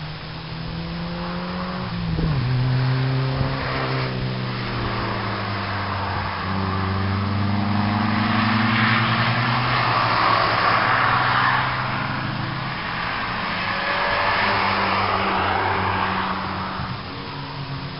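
A rear-mounted four-cylinder engine in a Skoda 105/120-type saloon, driven hard on a circuit. The revs drop sharply about two seconds in, then rise and fall through the corners. It gets louder toward the middle and fades near the end.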